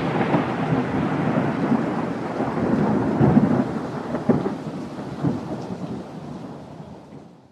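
Long rumbling, thunder-like noise with a few louder cracks, fading steadily until it dies away just before the end.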